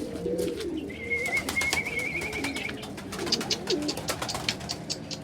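Domestic pigeons cooing in a loft, several low warbling coos overlapping, with scattered light clicks and taps. A thin wavering high-pitched tone sounds for about two seconds, starting about a second in.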